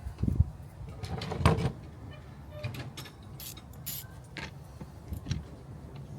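Hand tools and parts being handled while battery cables are reworked: a few knocks in the first second and a half, then scattered light clicks, over a low steady hum.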